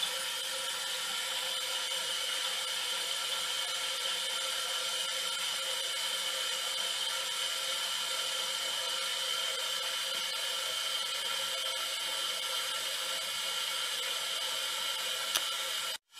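A steady whirring hiss with a few constant tones in it, unchanging throughout. There is a single faint click near the end, then the sound cuts out briefly.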